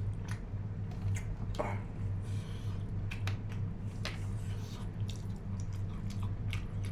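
Close-up mouth sounds of a person eating: chewing with scattered short wet clicks and smacks, over a steady low hum.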